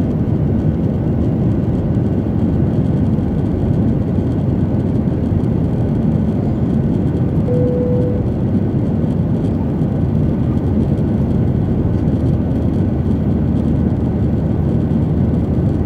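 Steady cabin noise of a jet airliner in flight: the even rumble of engines and airflow. A brief single steady tone sounds about halfway through.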